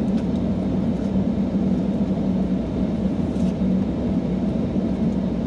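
Steady low hum of a car heard from inside its cabin, with no break or change.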